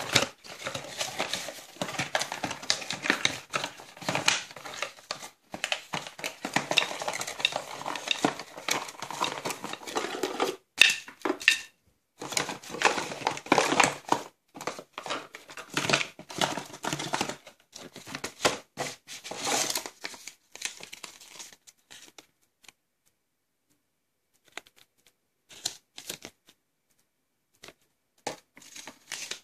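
Irregular bursts of rustling, crinkling and light clattering from a cardboard box and plastic bubble-wrap packaging being handled as a multimeter, its test leads and manual are unpacked. The handling dies away about three quarters of the way through, leaving only a few faint clicks.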